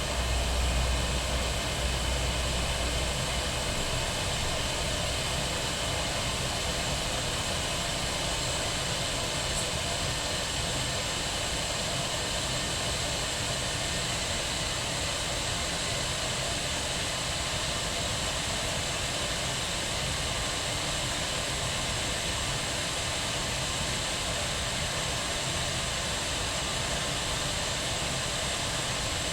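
Kettle boiling: a steady rushing roar of bubbling water and steam that swells up in the first second, with a low rumble for the first few seconds.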